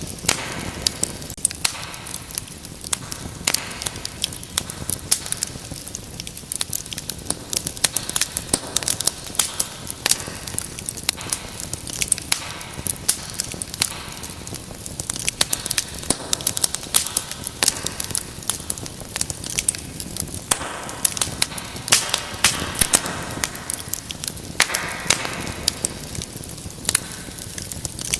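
Wood fire in a fireplace crackling and popping, with many sharp irregular snaps over a steady hiss of burning, and now and then a brief rush of hiss from the flames.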